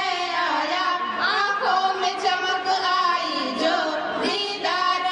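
Three girls singing a song together into microphones, holding long notes and sliding between pitches.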